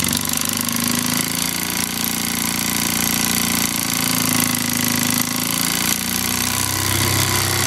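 Jensen 85 toy steam engine running fast on live steam: a steady, very rapid mechanical beat with a low hum under it, keeping an even speed throughout.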